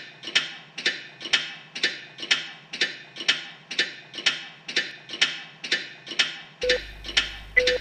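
Clock ticking, about two ticks a second, as a countdown. A little over six seconds in, a low hum sets in and a short beep sounds once a second.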